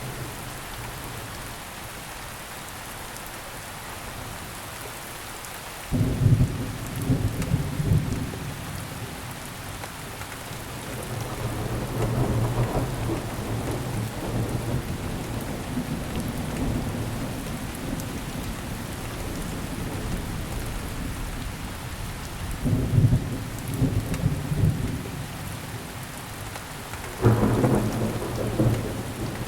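Steady rain falling, with thunder rumbling over it: a sudden loud peal about six seconds in, a slower roll building around twelve seconds, and two more sudden peals near the end.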